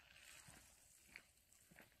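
Near silence with a few faint footsteps on an asphalt path, spaced unevenly about half a second apart.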